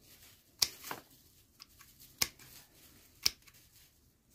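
Secateurs snipping shoots off a panicle hydrangea seedling: four short, sharp cuts, two in quick succession just under a second in, then one at about two seconds and one a little after three.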